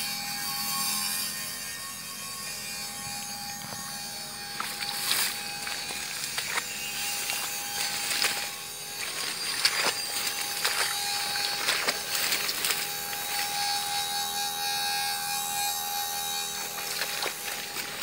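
Irregular rustling and crackling of rice stalks being pushed through and handled, heaviest in the middle, over a steady high-pitched background hum.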